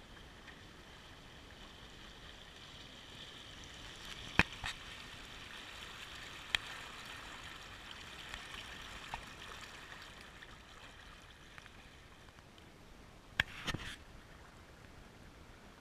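Water rushing and trickling along the hull of a Fusion 15 sailing dinghy under way, swelling a little in the middle. A few sharp clicks stand out, two close together near the end.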